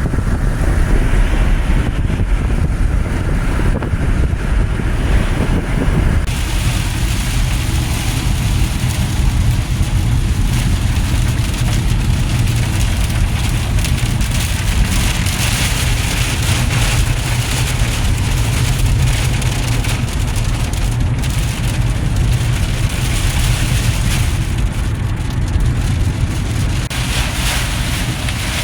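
A vehicle driving, with a steady low rumble and a hiss of wind and rain on top that grows louder about six seconds in.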